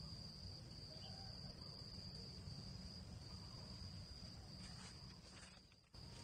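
Insects trilling in one faint, steady, high-pitched drone over a low rumble.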